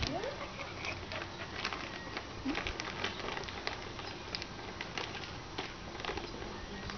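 Two dogs shuffling and jumping about on packed dirt, making scattered light scuffs and ticks, with a short rising whine right at the start.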